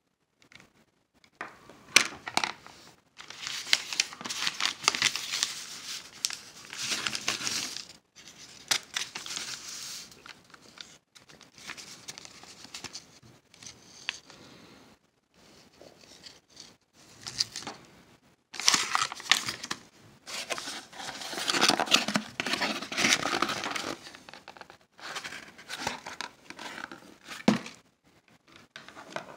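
Packaging crinkling and rustling as eyeglasses are unpacked and handled, in irregular bouts separated by quieter pauses, with a few sharp clicks.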